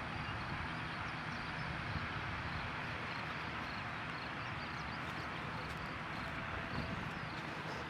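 Steady outdoor noise in a field: an even hiss with an irregular low rumble and a few faint high ticks.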